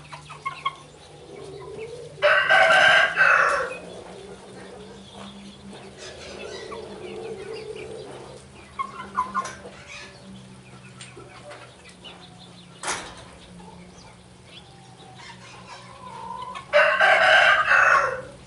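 Chickens clucking and calling softly, with a rooster crowing loudly twice, about two seconds in and again near the end, each crow lasting about a second and a half.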